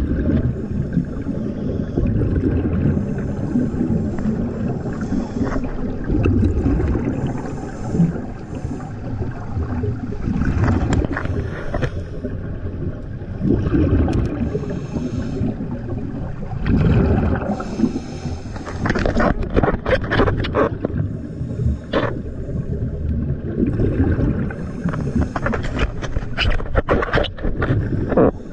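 Underwater sound of a scuba diver breathing through a regulator: a continuous low rumble of water noise, broken by repeated bursts of exhaled bubbles.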